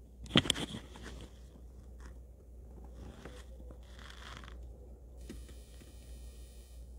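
Handling noise on a phone's microphone: a short burst of rubbing and crunching about half a second in, then a faint steady low rumble with light rustling.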